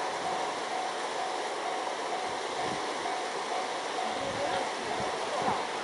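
Distant fireworks booming low a few times, starting about two seconds in, over a steady rushing background, with a thin tone pulsing on and off about twice a second.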